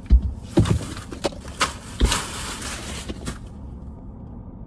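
A run of irregular knocks and clicks, with a rustling, crinkling noise for about a second starting two seconds in, like objects and packaging being handled close to the microphone.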